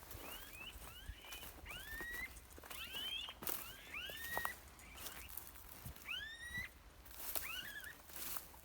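Birds calling outdoors: a series of short whistled notes, each curving upward in pitch, repeated in little groups, with faint rustles and clicks.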